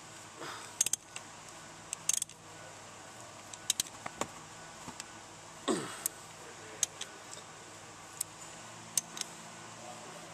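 Sharp metallic clicks and clinks at irregular intervals from a socket wrench on the crankshaft pulley bolt, as a 2.7L V6's crankshaft is turned over slowly by hand to check the new timing belt's alignment. There is one short falling squeak about six seconds in.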